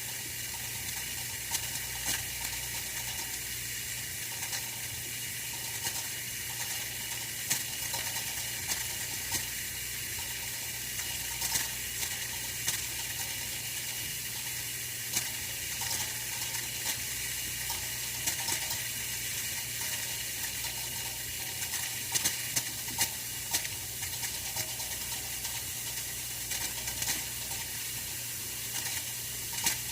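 Oil-filled radiator heater running: a steady hiss over a low hum, with small irregular crackles and ticks scattered throughout.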